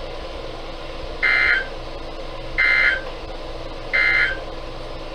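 Three short bursts of Emergency Alert System digital data tones, each about a third of a second and about a second and a half apart, over a broadcast's steady background hiss. They are the end-of-message code that closes the warning broadcast.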